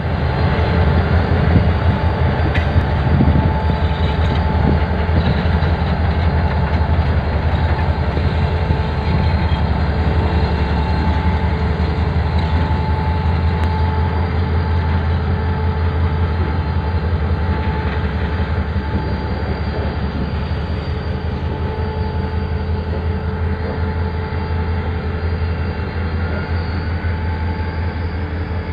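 Diesel-electric locomotive engine running with a deep, steady drone, with a faint steady whine above it, as it moves a short train slowly through a yard while shunting. The sound slowly eases off over the last several seconds.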